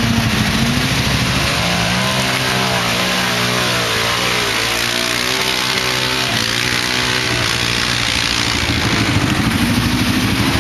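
Quad bike (ATV) engines running, one revving up and down repeatedly through the middle as it is driven through deep mud, over the steady idle of another.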